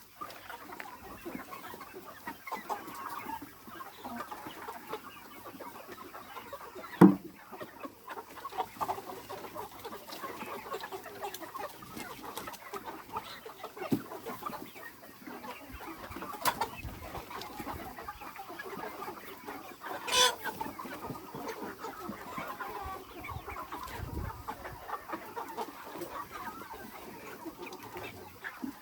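Aseel cross chickens clucking in a flock, with a few sharper, louder sounds; the loudest comes about seven seconds in.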